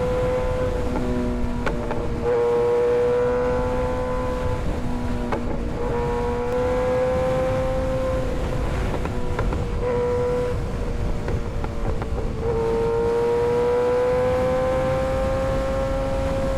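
Kawasaki ZX-6R 636's inline-four engine running while riding, its note climbing slowly and dropping back several times as the throttle is opened and eased off, over wind rush.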